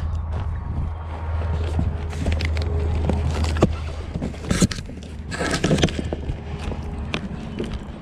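Cardboard boxes being handled and loaded: scattered knocks and scrapes, with a longer rustling slide a little past the middle, and footsteps on gravel over a steady low rumble.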